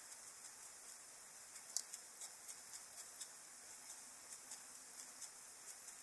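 Faint, irregular computer mouse clicks, one to three a second, with one sharper click a little before two seconds in.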